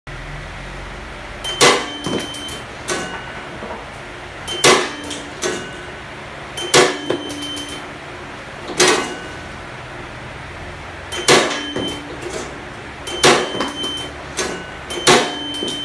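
Gravity-feed metal detector's stainless reject flap and chute clacking sharply, seven times at about two-second intervals, each clack ringing briefly and followed by one or two lighter clicks, as test pieces are dropped through the hopper, over a steady low machine hum.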